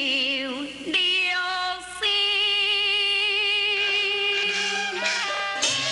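A woman singing a Taiwanese opera (gezaixi) aria in long held notes with a wavering vibrato. Low accompanying instruments come in under the voice near the end.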